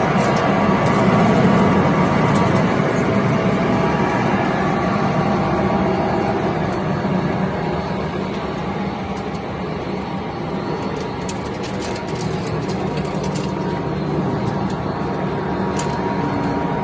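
Waste-cable recycling line running: a cable pre-shredder and its belt conveyors give a steady machine drone with a low hum and a thin whine, over scattered light ticks.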